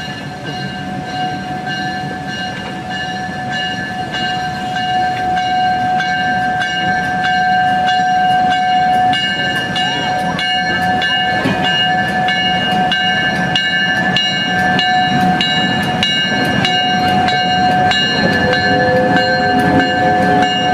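A train rolling slowly on rails, its wheels giving a steady, many-toned high squeal over a regular clicking of wheels over rail joints, about two to three clicks a second. The squeal cuts off suddenly near the end.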